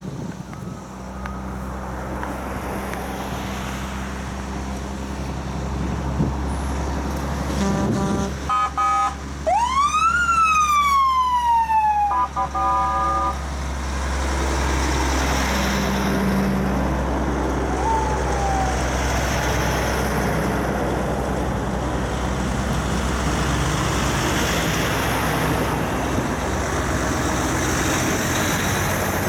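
Convoy of heavy trucks driving past, their diesel engines running with a steady low drone. About a third of the way in, air horns sound in short blasts and a siren wails up once and falls away.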